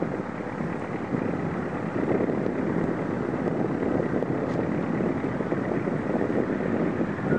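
Wind rushing and buffeting the microphone, a steady noise with no distinct events.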